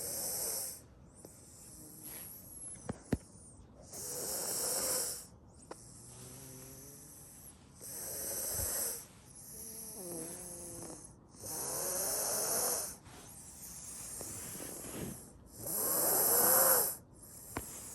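Snoring during sleep: a loud rasping snore about every four seconds, with a softer breath carrying a faint wavering whistle between each one.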